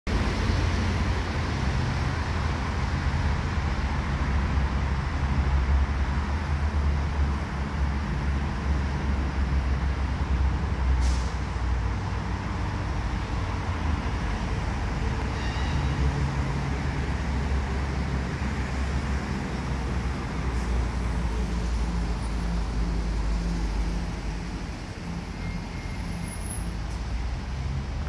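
Steady low rumble of road traffic with an engine hum, under a faint even hiss; it drops somewhat near the end.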